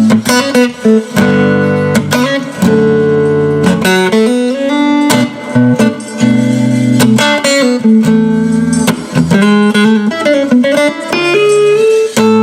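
Electric guitar played through a Fender '68 Princeton reissue combo amp: strummed chords and sustained notes, several of them sliding or bent in pitch, as a speaker sound comparison.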